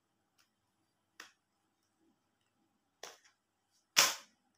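A mobile phone and its pouch being handled on a glass tabletop: three short sharp clicks, about a second in, about three seconds in, and a louder snap about four seconds in.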